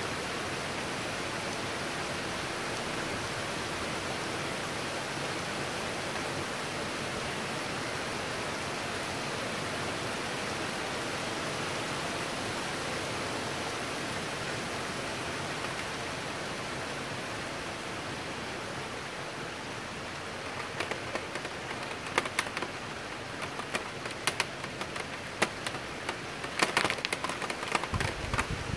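Heavy downpour hissing steadily during a thunderstorm. From about twenty seconds in, sharp irregular drop taps close by join the hiss, coming more often toward the end.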